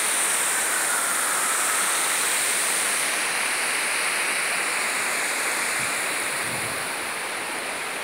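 Waterfall: river water rushing and splashing down over broad rock slabs, a steady dense rushing noise that eases slightly near the end.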